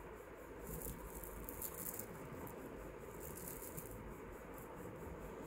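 Faceted beads and gold-tone chain links clinking and rattling faintly as a handful of beaded chains is shifted in the hand, in short spells about a second in and again near two seconds.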